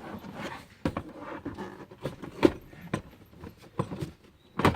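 A series of sharp clicks and knocks as a child car seat is pressed free and turned around on its base.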